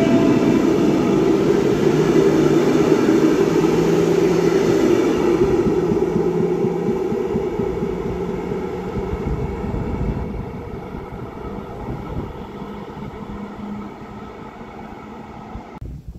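SNCB double-deck passenger train pulling out and running away along the track, its rumble and steady whine fading as it recedes.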